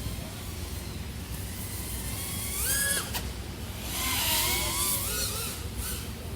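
Small FPV quadcopter's four brushless motors and propellers whining, the pitch gliding up and down as the throttle changes, with a sharp click about three seconds in.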